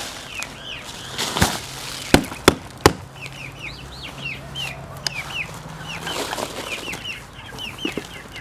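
Backyard chickens clucking with many short repeated calls. About a second and a half in there is a thump, then three sharp knocks in quick succession, from the potted-potato container being turned out.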